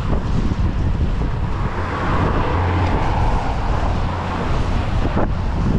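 Wind buffeting the microphone with a steady low rumble, while a small motorboat's outboard engine runs as the boat passes and pulls away.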